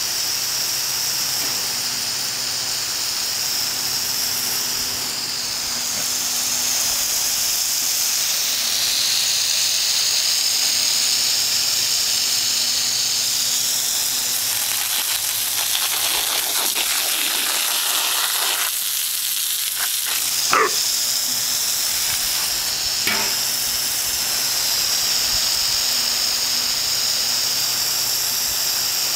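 Water jet from a garden hose spraying across a lawn: a steady hiss that swells and eases a little. One brief sharp sound stands out about two-thirds of the way through.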